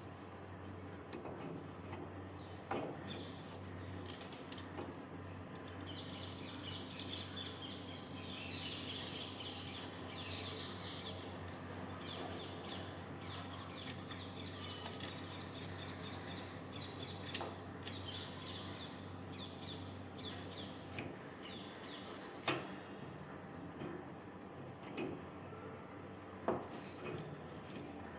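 Birds chirping and calling, over a steady low hum. A few sharp knocks stand out, the loudest near the end.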